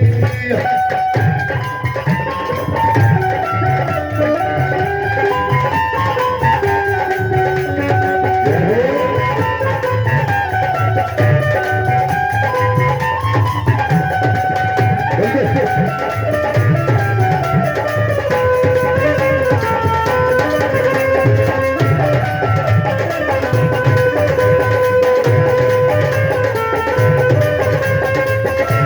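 Instrumental break in a live Punjabi folk song: a steady hand-drum beat under a melodic lead line that glides up and down, with no singing.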